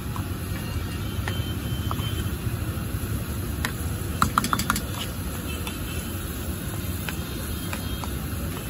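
Metal spatula scraping and tapping against a steel frying pan as a vegetable, bread and cheese filling is stir-fried over a gas burner, with a quick run of about five taps a little past four seconds in. A steady low rumble runs underneath.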